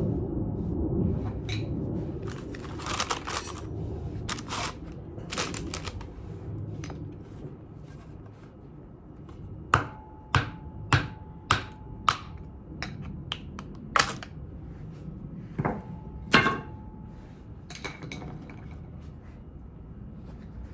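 Hammer driving a flathead screwdriver against the old seals in the BMW M3 differential's side pieces to knock them out: about ten sharp metal strikes, roughly two a second, with a faint ring after some. Lighter clatters and scrapes come before the strikes.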